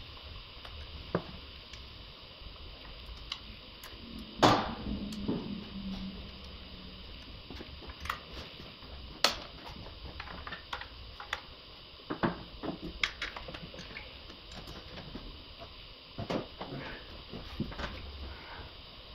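Scattered clinks, clicks and knocks of hand tools and metal parts being handled in an engine bay, with one loud ringing metal clank about four seconds in. A steady hiss runs underneath.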